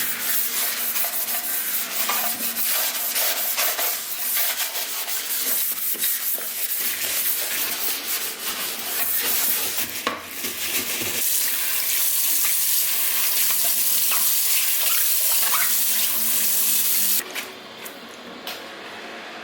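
Kitchen cleaning: scrubbing and rubbing with many small clicks and knocks, then about eleven seconds in a steady rush of running tap water into a sink that cuts off suddenly near the end.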